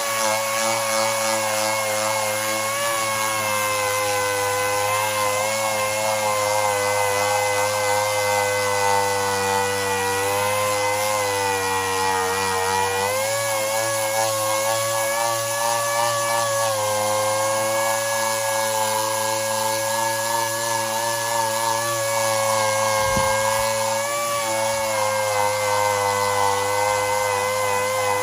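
Handheld electric power tool running steadily against the back of an alloy wheel, with a steady whine whose pitch wavers slightly as it is pressed on, stripping off balance-weight adhesive residue and corrosion.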